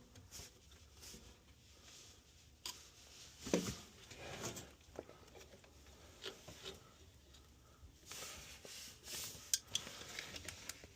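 Scattered light clicks, knocks and scrapes of hands refitting a furnace condensate drain hose and its clamp.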